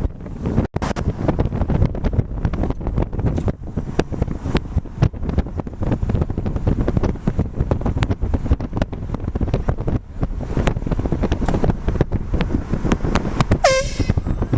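Wind buffeting the microphone with scattered clicks; near the end, one short air horn blast.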